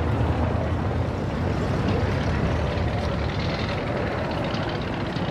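Steady outdoor street noise with a strong low rumble and no clear single event.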